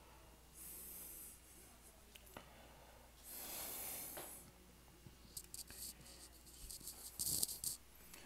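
Faint rustling and breathy hissing in two soft swells, then a run of small clicks and scratches with a short hiss in the last few seconds.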